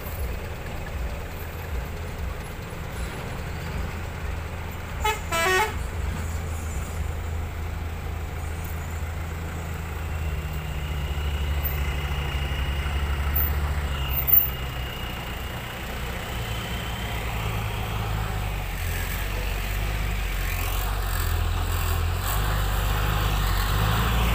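Heavy trucks on the road, their diesel engines running with a steady low rumble that grows louder toward the end as one comes closer. A short horn toot sounds about five seconds in, and a thin high whine holds for several seconds midway.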